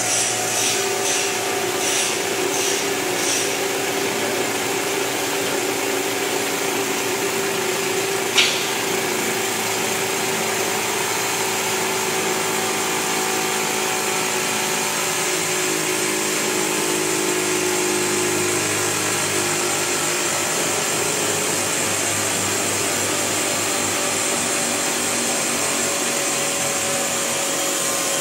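Stainless steel mill-type grinder running steadily under load, grinding a granular material, a loud even mechanical hum with a hiss over it. A short hiss pulses about twice a second for the first few seconds, and one sharp knock comes about eight seconds in.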